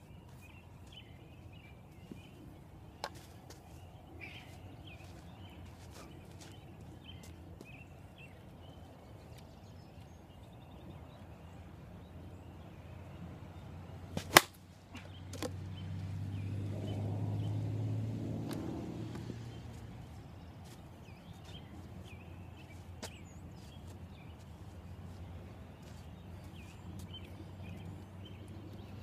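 An Avarice G2 softball bat striking a softball off a batting tee: one sharp, loud crack about halfway through, with a weaker click a second later. Just after it, a low hum swells and fades over a few seconds, and a few faint clicks are scattered through the rest.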